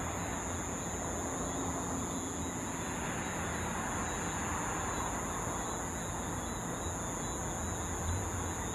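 Boeing 747-400 airliner's four jet engines running on the runway, heard from a distance as a steady rumble and hiss, with a steady high-pitched tone above it.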